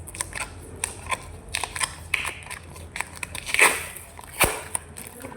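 Plastic packaging crinkling and crackling as it is handled and opened, in irregular clicks, with a louder crackle about three and a half seconds in and a sharp click about a second later.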